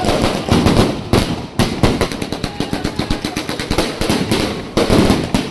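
Aerial fireworks firing from the ground: a rapid, unbroken string of launch pops and bangs from the shells bursting overhead, with crackle between the reports.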